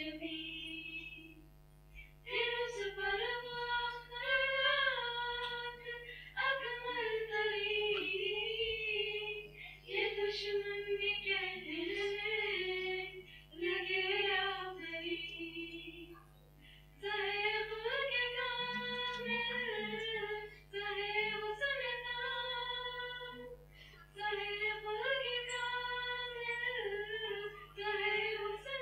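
Female voices singing an Urdu nazm (devotional poem) unaccompanied, in melodic phrases of a few seconds with short breaks between them, over a steady low hum.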